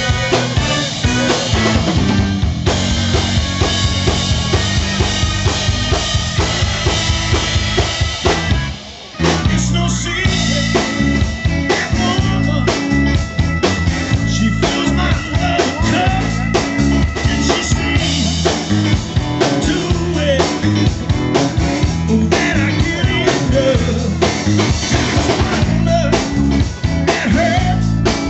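Live band playing a soul number on drum kit, bass and guitar, with a brief break about nine seconds in before the whole band comes back in.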